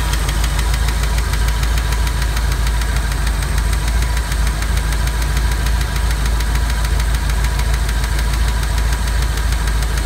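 Ford 5.0 (302) V8 engine running with a rapid, even ticking that seems to come from under the driver-side valve cover. The noise appeared after the engine overheated: the owner takes it for overheating damage.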